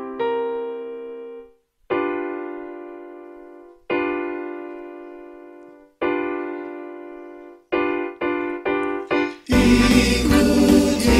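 Keyboard playing a slow hymn introduction: sustained chords struck about every two seconds, each fading away, then four shorter chords in quick succession. Near the end a men's choir comes in singing with full accompaniment, much louder.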